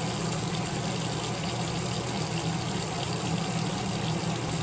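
Tap water running steadily into a sink: a constant hiss with a low hum underneath.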